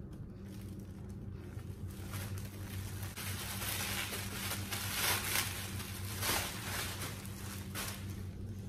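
Clear plastic wrapping crinkling and rustling as it is pulled off a wire metal basket, louder in the second half, over a low steady hum.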